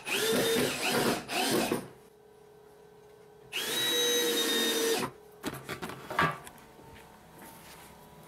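Cordless drill motor running in two bursts, the first with its whine dipping and rising as the trigger is eased, the second steady for about a second and a half; a few knocks and light clatter follow.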